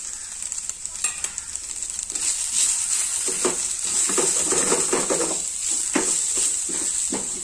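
Anchovy-and-onion mash frying with a steady sizzle in a metal pan while a wooden spatula stirs and scrapes through it. The stirring strokes get busier about two seconds in.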